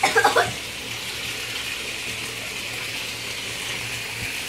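Water running steadily from a tap into a bathtub. A girl's voice is heard briefly at the very start.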